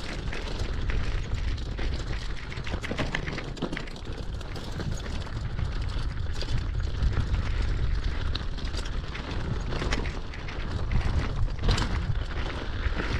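Wind buffeting the microphone of a mountain bike riding fast down a rough gravel trail, a heavy rumble throughout, with the tyres rolling over stones and the bike rattling in frequent sharp clicks.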